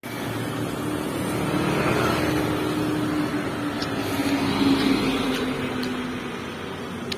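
Light cargo truck driving past: a steady engine note that grows louder to about the middle, then fades as the truck moves away.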